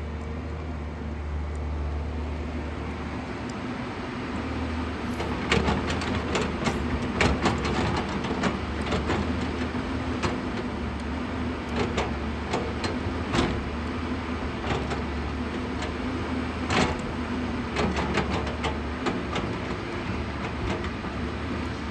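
JCB 215 excavator's diesel engine running steadily, with repeated sharp clanks and knocks starting about five seconds in.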